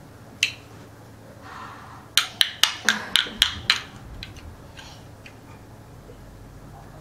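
Small plastic Duplo pieces knocked together in a baby's hands: a single sharp click, then a quick run of about eight clicks over a second and a half.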